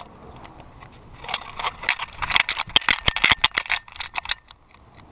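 A dog's harness, collar and strapped-on action camera rattling and jangling in rapid clicks as the pit bull runs. The rattle starts about a second in and stops near the end.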